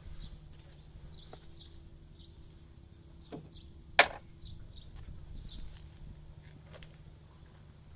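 Faint outdoor ambience: scattered short, high chirps over a steady low hum, with a single sharp click about four seconds in as the loudest sound.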